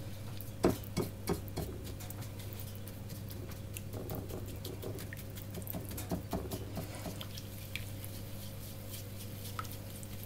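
Silicone pastry brush stirring a wet seasoning paste in a ceramic plate: soft, irregular taps and scrapes against the china, a few louder ones about a second in, over a steady low hum.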